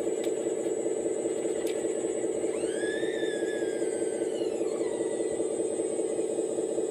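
Hydraulic pump motor of an RC model Komatsu PC240 excavator running with a steady hum. About two and a half seconds in, a squeal starts, rises quickly in pitch and then slowly falls over nearly three seconds before fading.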